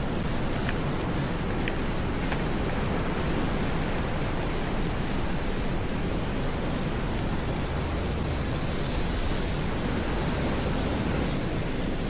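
Steady rushing noise of wind and surf on a beach, heavy in the low end, with a few faint clicks from bamboo skewers being handled on a wire grill.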